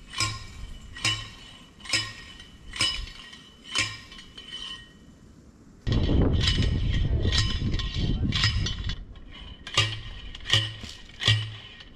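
A steel post driver pounding a steel T-post into the ground, one ringing metallic clang about every second. About halfway through, a steady rushing noise covers the strikes for a few seconds. The strikes then come through clearly again near the end, a little quicker, each with a dull thud under the clang.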